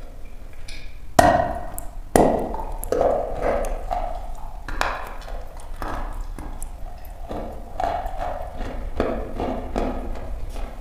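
A lump of dry chalk bitten off with two loud sharp snaps, about one and two seconds in, then chewed in a run of crisp, irregular crunches.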